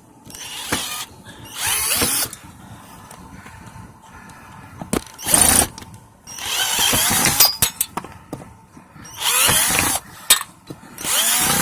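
Cordless drill backing screws out of a metal table, run in about six short bursts of a second or less, its motor pitch sliding up and down in each. Sharp clicks and clinks come between the bursts.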